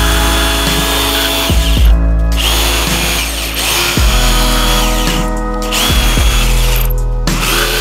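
Corded Craftsman jigsaw cutting a curve in plywood, its motor and reciprocating blade running with three brief stops, over background music.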